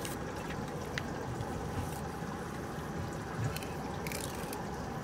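A steady wet wash with a faint hum, and a few short scrapes and cuts as a knife works through a salmon on a cutting board, about a second in and again near the end.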